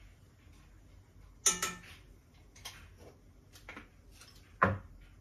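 Metal cookware clinking and knocking: a few separate strikes on a steel pot and pan. The first, about a second and a half in, rings briefly; a duller, equally loud knock comes near the end.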